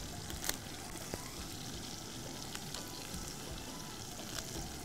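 Chicken pieces and onions sizzling steadily in oil in a cooking pot, with a few light clicks, the clearest about half a second in.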